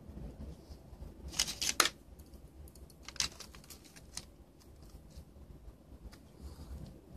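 Small plastic USB card reader handled and turned over in the fingers: a quick cluster of sharp clicks about a second and a half in, then a couple of single fainter clicks.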